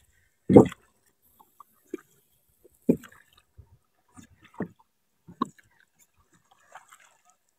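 Wooden oars of a rowing boat dipping and pulling through river water: a few short, irregular splashes and knocks spaced about a second apart.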